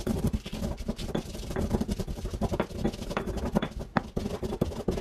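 Stone pestle grinding garlic and dried spices in a volcanic-stone molcajete: a fast, irregular run of gritty scrapes and knocks of stone on stone that stops near the end.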